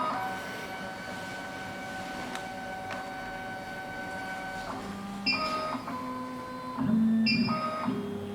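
SEC-E9 CNC key cutting machine's stepper motors whining as the carriage moves during clamp calibration: a steady tone for the first few seconds, then a string of short moves that jump abruptly from pitch to pitch.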